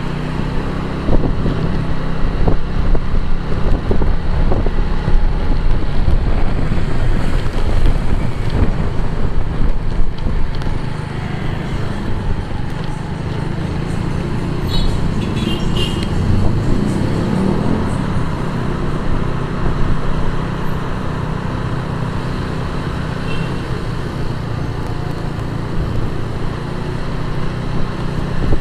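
A motorbike riding through city traffic: its engine running steadily under wind noise on the microphone and the rumble of traffic around. Louder for the first ten seconds or so, then easing off a little.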